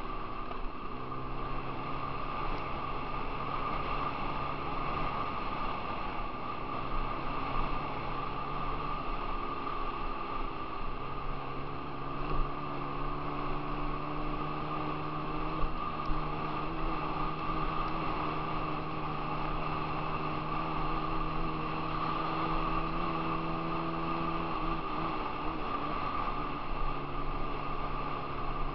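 Dirt bike engine running at a steady cruising pace, its note holding level and breaking off briefly a few times as the throttle changes. A couple of sharp knocks are heard in the middle.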